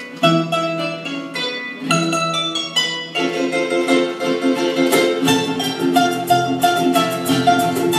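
A live harp-led ensemble of concert harp, acoustic guitar, percussion and double bass plays a huapango. Plucked chords repeat in short phrases, and about three seconds in the texture thickens, with a low bass line coming in near the middle.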